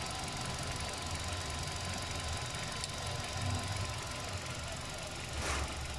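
Hyundai gasoline engine idling steadily in the open engine bay, with a brief noise about five and a half seconds in.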